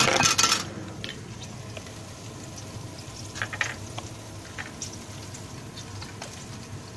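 Oil in a frying pan on a gas burner sizzling faintly, with a few light clicks and taps. A loud, brief rustle of the camera being handled comes right at the start.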